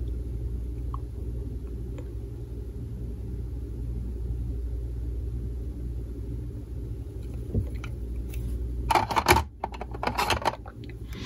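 Hard plastic coin slabs clacking as they are handled at a slab storage box, a short burst of clatter near the end, over a steady low hum.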